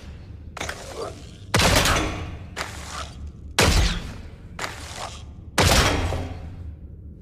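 Yumi compound bow sound effect played over and over: three loud sharp shots about two seconds apart, each trailing off over a second or so, with a softer sharp sound about a second before each one.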